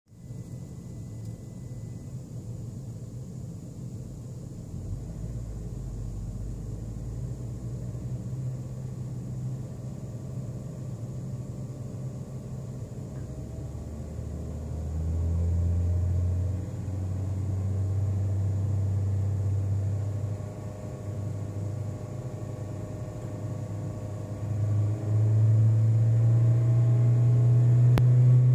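Toyota Ractis's 1NZ-FE 1.5-litre four-cylinder engine, a low drone heard through the firewall. It steps up in pitch and loudness several times, rising toward the end.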